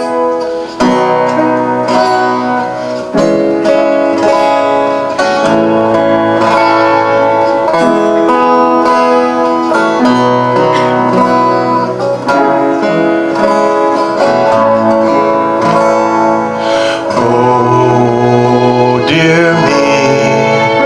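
Acoustic folk band playing the instrumental introduction to a song on plucked strings, a guitar among them.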